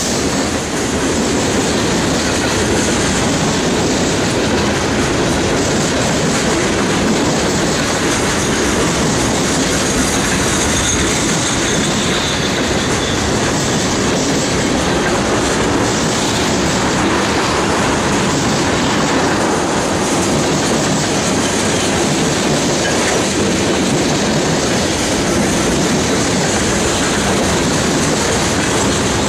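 Freight train cars rolling past close by at speed: a steady rumble with the clickety-clack of steel wheels over the rail joints.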